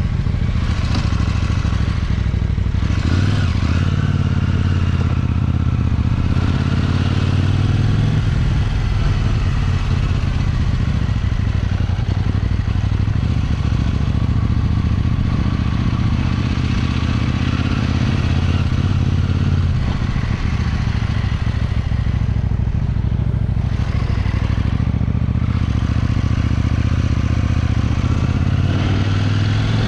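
KTM 790 Duke's parallel-twin engine running as the bike rides at low street speed, its low note shifting in pitch a few times with throttle and gear changes.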